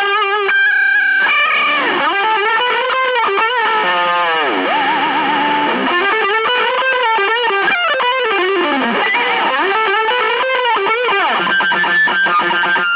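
Vigier electric guitar played through distortion: a melody whose notes swoop up and down in pitch, a held note with wide vibrato about five seconds in, and a fast downward dive of pitch near the end.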